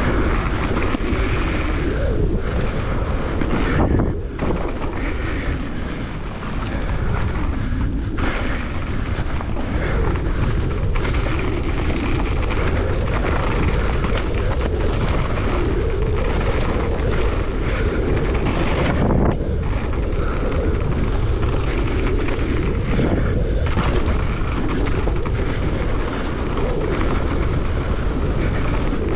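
Wind rushing over the microphone of a ride camera on a mountain bike descending a dirt bike-park trail, mixed with the tyres and bike clattering over the dirt. The noise is steady and loud, with a few brief dips.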